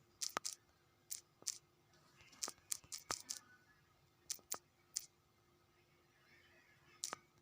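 Sharp, irregular clicks of typing on a smartphone's on-screen keyboard: about fifteen taps in uneven clusters, with a pause of about two seconds before the last few.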